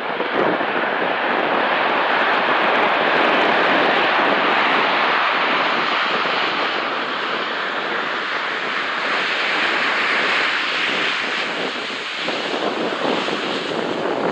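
Four GEnx turbofan engines of a Boeing 747-8F freighter running on the ground, a loud, steady rush of jet noise as the aircraft moves along the airfield.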